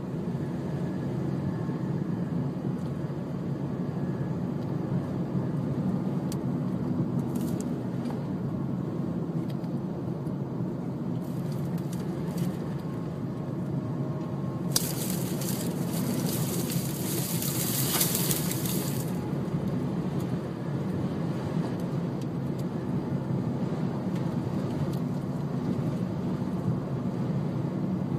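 Steady low rumble of a car driving, heard from inside the cabin, with a louder hiss for about four seconds past the middle.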